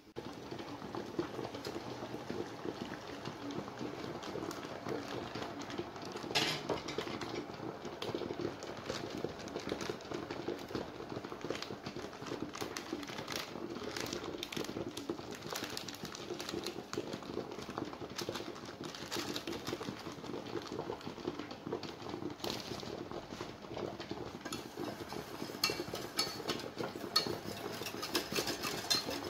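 Water heating and bubbling in a stainless-steel saucepan on the stove, with a few knocks of the pan. Near the end a wire whisk scrapes and rattles quickly against the pan, stirring raspberry Lamington dip powder into the hot water.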